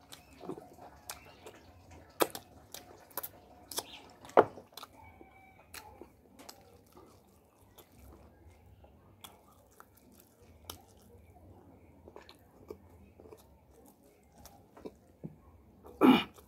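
Close-up eating sounds of a person chewing chicken and rice with an open mouth: wet smacks and sharp mouth clicks at an irregular pace, with one louder burst near the end.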